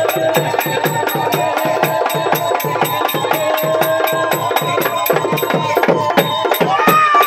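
Magudam frame drums beaten in a fast, even rhythm of about five strokes a second, with a sustained melody line held over the drumming.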